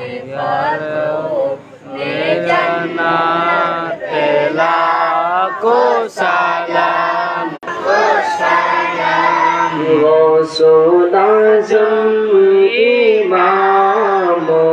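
Voices singing a Salaat-o-Salaam, the Urdu devotional salutation to the Prophet, in a long melodic passage of drawn-out, ornamented notes with no clear words, over a steady low drone that steps up in pitch about ten seconds in.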